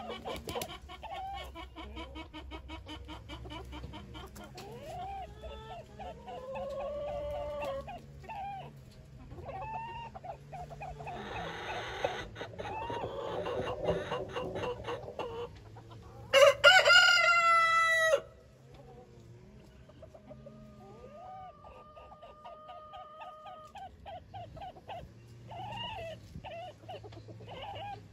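Chickens clucking in short, repeated calls, with a burst of wing flapping at the start. A rooster crows once, about sixteen seconds in, for about two seconds; the crow is the loudest sound.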